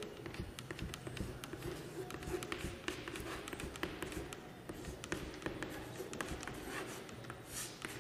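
Chalk writing on a chalkboard: a string of quick taps and short scratches as the letters are written.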